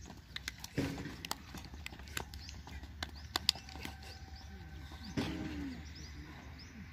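Outdoor background with scattered, irregular sharp clicks, a short call or voice about one second in and another about five seconds in, and faint bird chirps.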